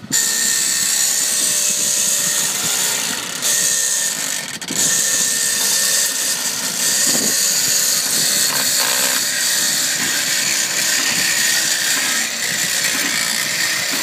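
Handheld electric Waveblade barnacle remover running with a steady high whine, its blade scraping dried, hard barnacles off a crusted surface with a gritty rasp. It cuts in abruptly, and dips briefly about four and a half seconds in.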